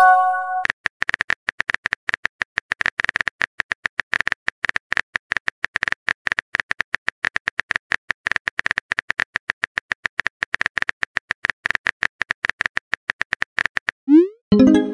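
Rapid, even clicks of a simulated phone keyboard as a text message is typed out letter by letter. The clicks open with a short chime, and near the end a rising swoosh sends the message, followed by another short chime.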